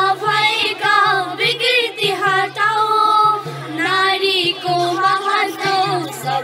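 Several young girls singing a Nepali folk-style song together into handheld microphones, with long held, wavering notes.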